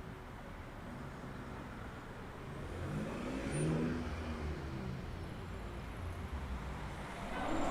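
A car on the road with low engine rumble; its engine note rises and falls as it draws near and passes about three to four seconds in.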